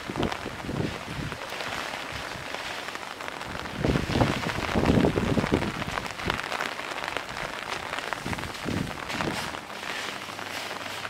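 Pouring rain falling and pattering on the ground and surfaces, a steady hiss full of small drop clicks that swells louder for a second or so about four seconds in.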